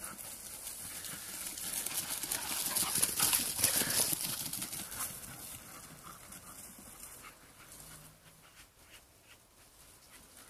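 Rustling footfalls through dry stubble, loudest in the first few seconds and fading away over the second half.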